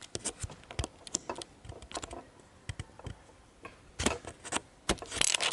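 Irregular small plastic clicks and scrapes of fingers working the hot-shoe cover off a Sony a6300 camera body, close to the camera's own microphone, with a denser run of scratchy clicks near the end.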